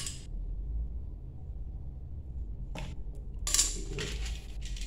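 Stiff PVC-insulated wires rustling and scraping as they are bent and handled at a wall socket box. There is a faint rustle near the three-second mark and a louder scrape about half a second later, over a low steady hum.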